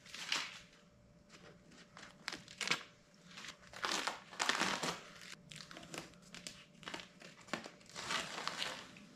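Masking tape being peeled off the back of a dash pad's vent openings, crackling and tearing in irregular bursts. The tape was left on until the sprayed bed-liner coating over it had begun to dry hard.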